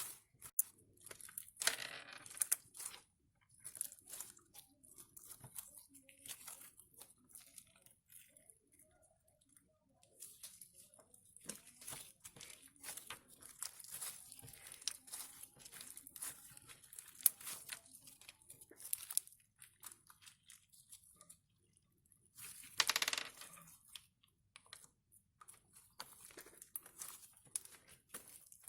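Homemade slime being squeezed and stretched by hand, giving irregular sticky crackles and pops, with a louder squelch about two seconds in and another near the end.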